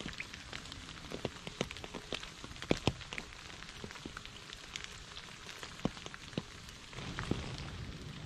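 Rain falling steadily, a constant hiss with many separate drops striking close by as sharp ticks. The rain grows a little heavier about seven seconds in.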